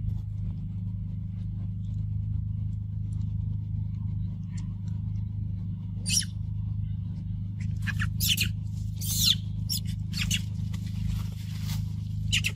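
Several short rustling, scraping noises, as of movement through dry leaves and dirt, starting about halfway through, over a steady low hum.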